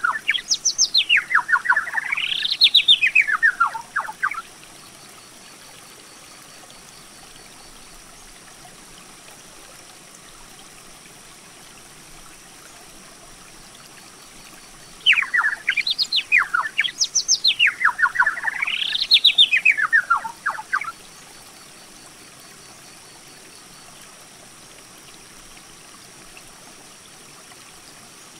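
A songbird sings two long songs about 15 seconds apart. Each lasts about five seconds and is made of rapid notes that sweep up and down in pitch. A faint, steady hiss runs beneath them.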